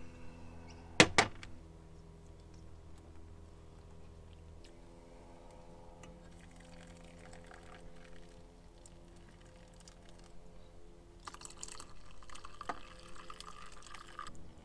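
Hot water poured from a Jetboil cooking cup into a drip-bag coffee filter on a mug, the trickle loudest near the end. Two sharp knocks about a second in.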